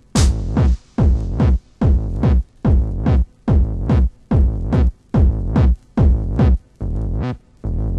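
Early-1990s techno track: a pulsing synth-bass figure repeats a little more than once a second, each note dropping in pitch, with short gaps between hits and a bright cymbal-like splash at the start.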